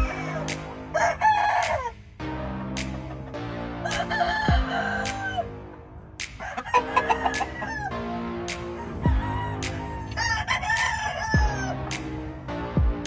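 Game roosters crowing, about four crows one after another, over background music with a steady beat.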